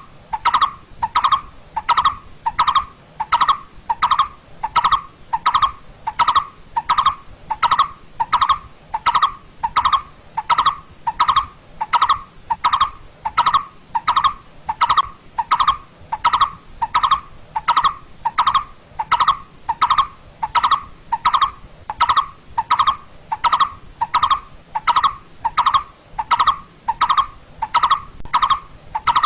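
Coppersmith barbet calling: a long, monotonous series of evenly spaced hollow 'tuk' notes, a little under two a second.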